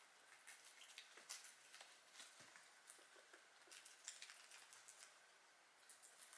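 Guinea pigs chewing lettuce and carrot: faint, irregular crunching clicks.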